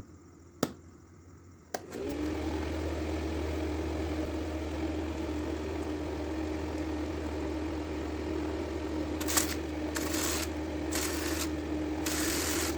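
Two clicks, then a small 12 V DC motor fan starts about two seconds in and runs with a steady hum. Near the end there are several short bursts of hiss.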